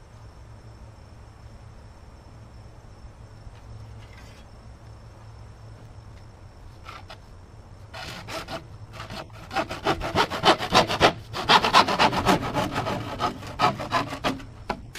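Hand wood saw cutting through 4-inch drain pipe in quick back-and-forth strokes. The sawing starts about eight seconds in and grows loud and rapid until just before the end.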